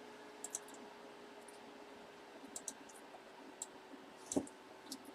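Faint computer mouse clicks, about eight of them scattered at uneven intervals, over a faint steady hum.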